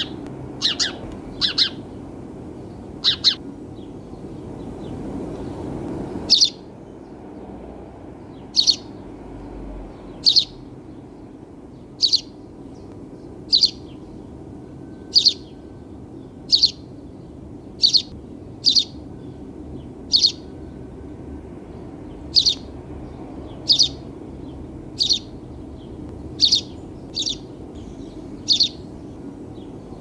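Sparrow chirping: single short, high cheeps repeated about every one to one and a half seconds, a few in quick pairs near the start, over a steady low background noise.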